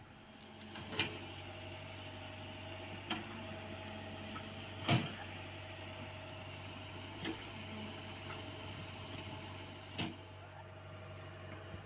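Komatsu PC75US mini excavator's diesel engine running steadily while it digs into an earth bank, with five sharp knocks from the working bucket and arm spread through, the loudest about five seconds in.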